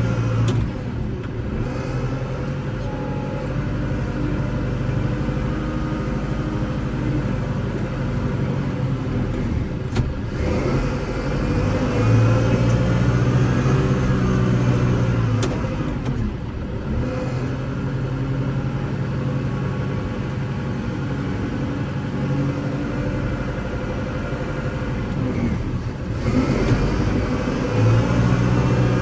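Kubota L6060 tractor's diesel engine running steadily while plowing snow. Its note rises and grows louder about twelve seconds in, settles again around sixteen seconds, and rises once more near the end, with a single sharp click at about ten seconds.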